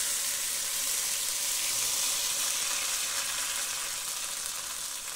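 Blended chile sauce sizzling as it is poured into hot oil in a clay cazuela, a steady frying hiss that eases off gradually over the last couple of seconds.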